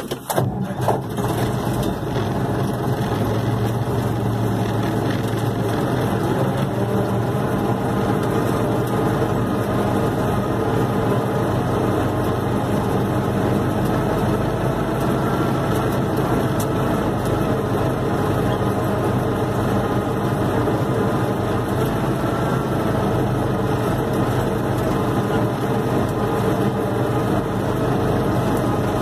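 Universal 650 tractor's four-cylinder diesel engine running at a steady speed.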